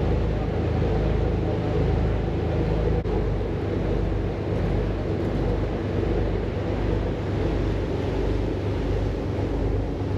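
A party fishing boat's engine running with a steady low drone, with some wind noise on the microphone.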